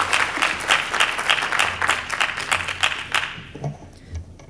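Audience applauding, a room full of people clapping, dying away a little after three seconds in.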